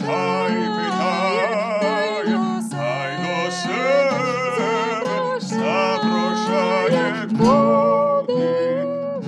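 A woman singing a Ukrainian folk song in a high voice with wavering ornaments, accompanied by a plucked kobza. She holds one long note near the end.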